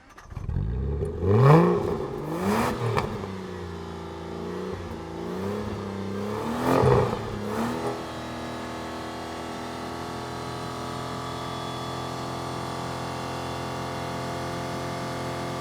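Aston Martin engine revved in three quick blips in the first eight seconds, then settling into a steady idle.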